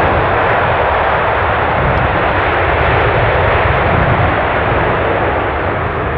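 Jet aircraft engines running loud: a steady rush with a deep low rumble underneath, easing slightly near the end.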